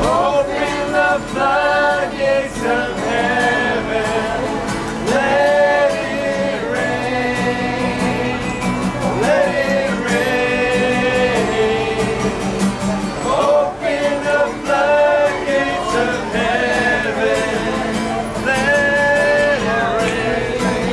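A small group of men and women singing a worship song together, with an acoustic guitar strummed along; the voices hold long notes that rise and fall.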